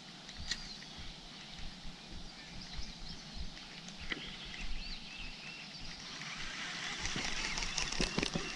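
Small birds chirping and calling around the lake over a steady outdoor background. Near the end a louder hissing stretch with a few sharp clicks comes in.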